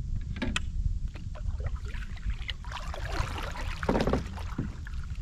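Kayak paddle strokes: the double-bladed paddle dipping and pulling through the water with splashes and drips, the biggest splash about four seconds in. A steady low rumble runs underneath.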